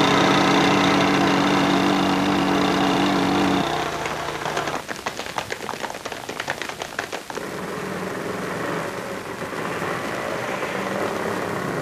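Motorcycle engine running steadily, cutting off suddenly a few seconds in; then a quick run of sharp clicks and clatter for about two and a half seconds, followed by a small vehicle engine running.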